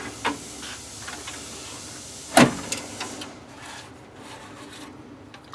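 Circuit board being pulled from its slot in a CNC control's card cage: small clicks and scraping, with one sharp clack about two and a half seconds in and a few lighter knocks after it, over a steady low hum.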